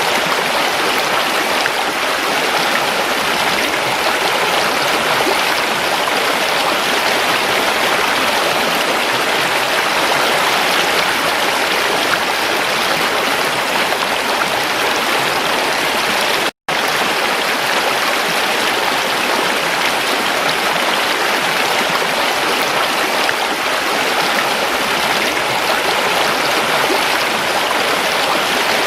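Creek water running, a steady, even rush with no change in strength. It cuts out for a split second just past the middle.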